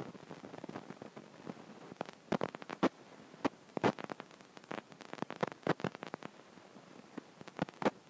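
Irregular light taps and clicks over a faint rustling hiss, several close together in the middle and a few more near the end.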